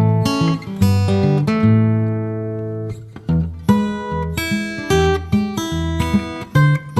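Background music on acoustic guitar: strummed and plucked chords.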